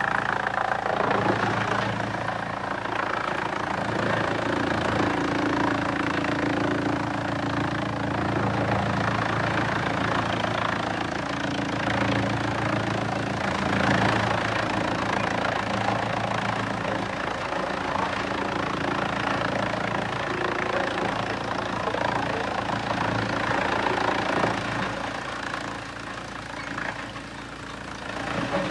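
Heavy diesel machinery running steadily under a dense rushing noise, easing off briefly near the end.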